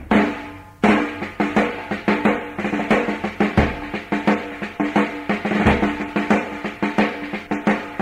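Rock band playing an instrumental passage, with no singing. The music breaks off suddenly and a chord dies away for under a second, then the drum kit comes back in with snare rolls and bass drum hits over sustained chords.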